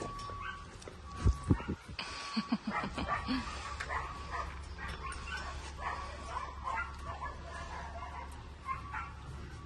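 A dog in a kennel whimpering in a few short notes about two to three seconds in, just after a few sharp knocks against the kennel's metal bars, then softer fidgeting sounds as it is petted through the bars.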